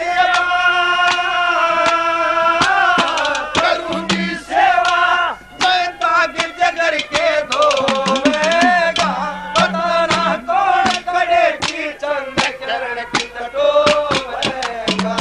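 A man singing a Haryanvi folk song at full voice, holding one long high note for the first couple of seconds, then going into a bending, ornamented melody, over quick hand-drum strokes.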